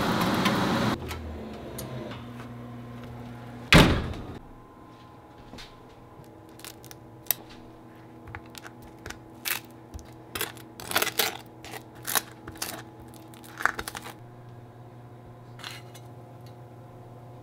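Kitchen prep sounds: one loud thunk about four seconds in, then a string of light clicks and knocks of a knife and utensils on bread and a wooden cutting board. A steady low hum runs underneath.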